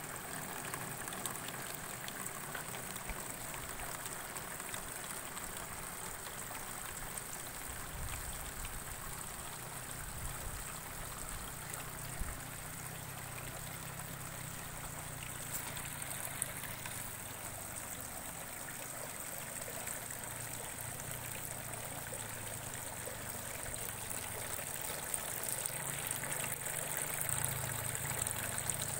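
Water trickling steadily through hydroponic lettuce gutters, with a steady high hiss over it. A low rumble comes in about eight seconds in and grows louder near the end.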